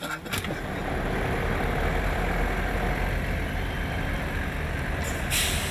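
Steady low rumble of vehicle engines as a motorhome and a lorry move slowly onto a ferry, with a short hiss near the end.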